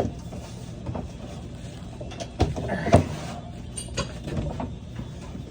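Knocks, bumps and scraping as the drum of a Maytag Bravos XL top-load washer is handled and lifted out of the cabinet, with two louder knocks near the middle.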